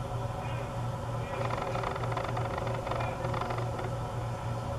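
Ballpark crowd chatter from the stands, with scattered voices, over a steady low hum.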